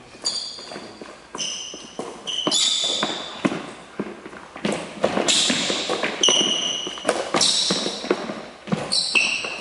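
Badminton rally on a wooden court: sharp racket hits on the shuttlecock and quick footsteps, with several short high squeaks of sports shoes on the floor.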